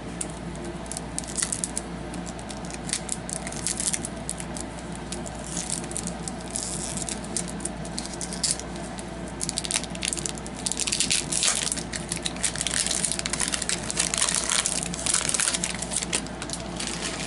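Hockey card pack wrapper being torn open and crinkled by hand: irregular crackling, heaviest in the second half.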